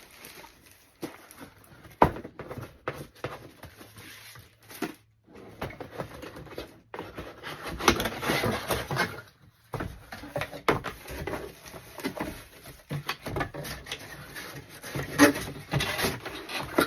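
Cardboard box and packaging being handled as a vacuum sealer and its parts are unpacked: rustling, with scattered knocks and thumps as things are set down.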